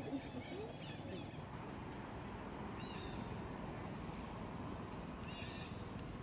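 Steady outdoor background noise with a few faint, short, high chirps about three seconds in and again near the end.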